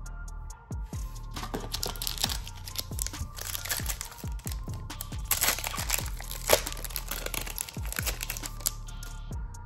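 Crinkling and tearing of a Flesh and Blood Arcane Rising booster pack wrapper as it is opened by hand, loudest about halfway through, over background music with a beat.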